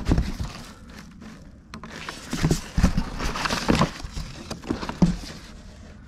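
Cardboard shipping box being handled and unpacked: rustling of cardboard and packing paper, with several light knocks as a boxed part is lifted out.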